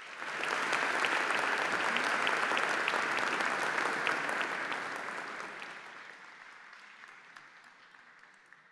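An audience applauding in a large hall, rising quickly to full strength and then gradually dying away over several seconds.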